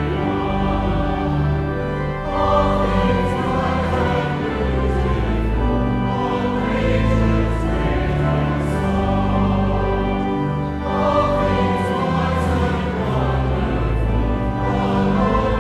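Choir singing slow, held chords with instrumental accompaniment over a low bass line.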